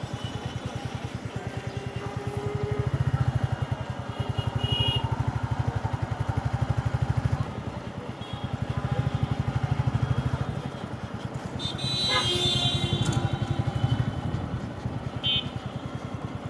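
Motorcycle engine running under way, its loudness swelling and easing several times as the throttle opens and closes.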